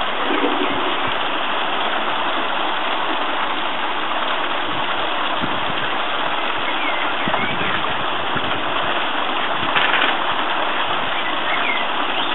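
Small garden pond waterfall splashing steadily into the water.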